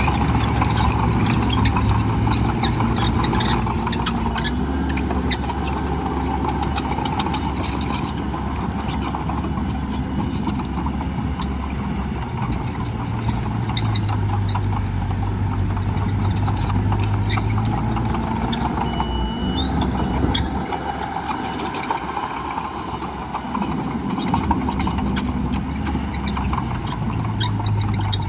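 Heavy diesel earthmoving equipment running at a land-fill site: engines with their speed shifting up and down several times, over a constant clatter of small clicks and rattles.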